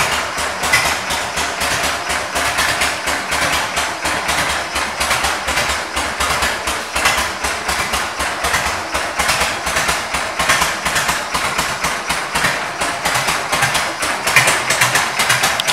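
1994 Harley-Davidson Ultra Classic's Evolution V-twin engine idling steadily, in a close, even run of pulses.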